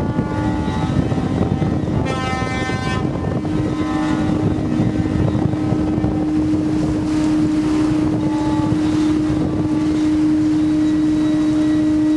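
Beam trawlers' ship horns sounding together in protest, overlapping. A higher horn blast comes about two seconds in, and one long, steady low blast starts about three seconds in and holds on, with wind noise on the microphone underneath.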